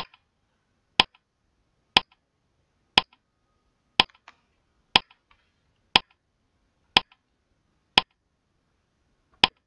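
Countdown timer sound effect ticking: ten short, sharp ticks, one a second, the last coming a little early.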